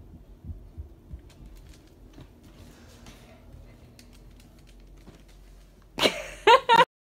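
A few soft thumps over quiet room sound. About six seconds in comes a short, loud vocal outburst with a wavering pitch, which then cuts off abruptly.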